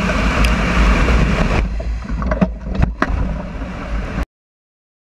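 Wind buffeting a camera mounted on a heavy-drop platform as it descends under parachute: a loud rushing roar with a heavy low rumble that thins out partway through. A few sharp knocks follow, then the sound cuts off abruptly a little after four seconds in.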